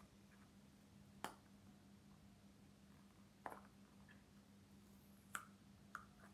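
Four short sharp clicks from fingers picking sticky tape off a toy's cardboard box, over a faint steady low hum.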